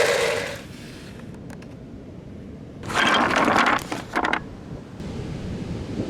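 Marbles clattering and rolling through wooden Cuboro marble-run blocks, in two short bursts of sharp clicks about three and four seconds in. A steady hiss of wind and surf comes in near the end.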